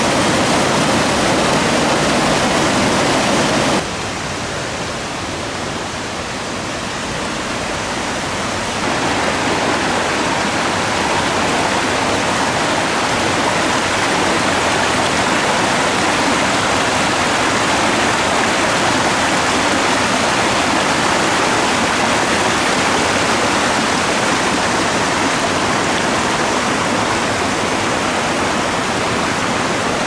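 Mountain stream rushing and splashing over rocks and small cascades, a steady rush of water. It drops abruptly to a softer sound about four seconds in, then grows fuller again from about nine seconds.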